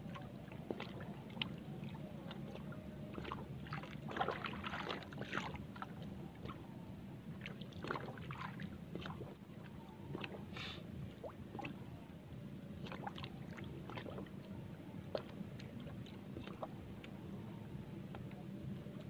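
Water lapping and sloshing against a small outrigger boat over a steady low hum, with many scattered sharp taps and knocks, bunched together about four to five seconds in.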